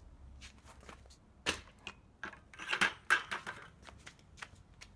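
A string of sharp clicks and knocks as a heavy plastic bucket filled with rocks is set onto an aluminum folding hand truck. The loudest knock comes a little over a second in, and a cluster of knocks follows around three seconds in.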